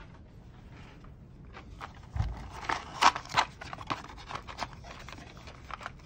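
A cardboard box of plastic twist-on wire nuts being handled: a dull thump about two seconds in, then a quick run of clicks and scrapes as the box is opened and the plastic connectors shift inside.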